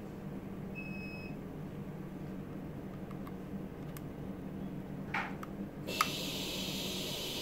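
A short electronic beep about a second in, over a steady low hum. About six seconds in comes a click, then a steady air hiss starts and continues.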